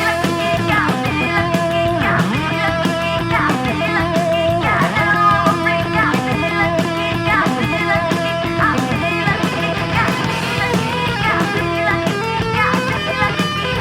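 Recorded rock song with guitars playing at a steady loud level, with many sliding and bending guitar notes.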